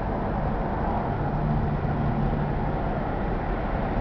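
Road noise inside a moving car's cabin: a steady rumble of engine and tyres on the pavement, with a low hum that comes in for a second or two in the middle.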